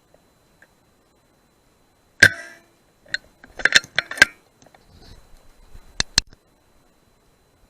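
A single rifle shot about two seconds in, then a quick run of sharp clicks, and two more clicks close together near the end.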